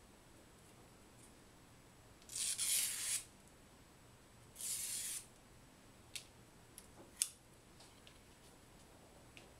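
A thin strip of origami paper drawn twice along a scissor blade to curl it, each pull a short scraping hiss. A few light clicks follow.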